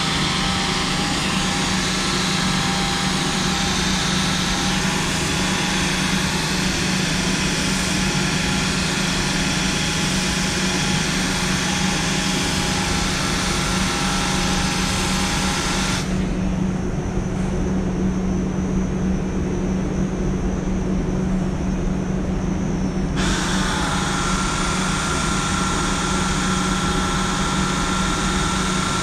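Small handheld rotary polisher running steadily as it polishes the car's painted door panel, a steady motor hum with a faint whine whose pitch shifts slightly as the speed changes. About sixteen seconds in the higher part of the sound drops away for several seconds, then comes back.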